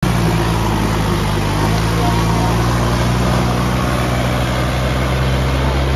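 Diesel tractor engines of a Swaraj 855 FE and a Sonalika DI-750 running hard and steady under load, the two tractors chained together and pulling against each other in a tug of war.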